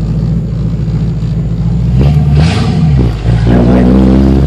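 Exhaust of a Ford 5.0 V8 run through an off-road H-pipe with no catalytic converters and no mufflers. It drones steadily at low cruising speed, revs up and falls back about two seconds in, and climbs again near the end. Very loud.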